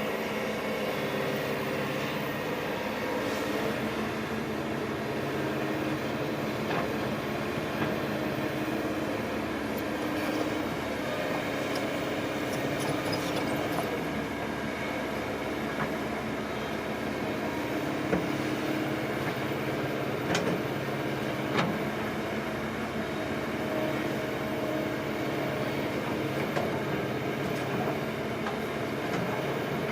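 Diesel engine of a tracked earthmover (bulldozer or excavator) running steadily at work, with a few sharp metallic clanks.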